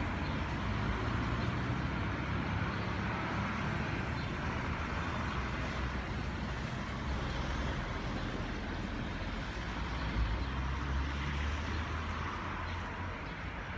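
Street traffic running steadily, with the low engine rumble of passing vehicles, heaviest around ten seconds in.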